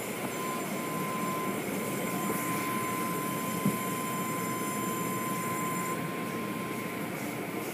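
Automatic car wash machinery running: spinning cloth brushes and water spray working on a car, heard through the glass of the tunnel's viewing windows as a steady rumble. A steady high tone runs alongside and stops about six seconds in.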